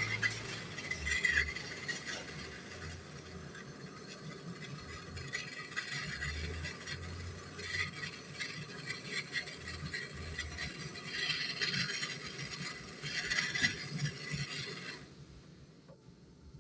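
Brazing torch flame hissing steadily as it heats a copper tube joint on a refrigerator compressor, with some light metallic scraping and rattling. The hiss cuts off suddenly near the end.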